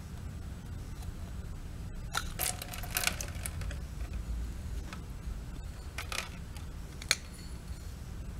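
Small metallic clicks and scrapes as the aluminium float bowl of a Tecumseh lawn-mower carburetor is worked loose and pulled off the carburetor body by hand: a cluster of scraping clicks a couple of seconds in, then a few single sharp clicks, over a faint low hum.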